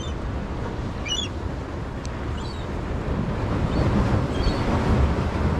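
Wind rumbling on the microphone over surf, with a few short, high gull calls.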